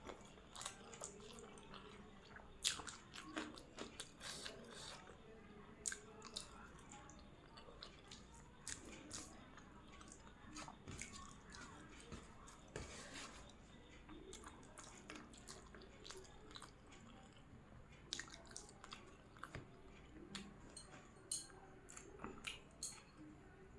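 A person chewing and eating chicken biryani: soft, irregular mouth clicks and smacks.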